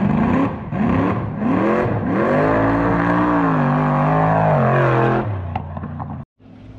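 Mud truck's 383 stroker small-block Chevy V8 revving: a few quick blips, then one longer pull of about three seconds that rises and falls in pitch as the truck drives off. The engine sound drops away about five seconds in.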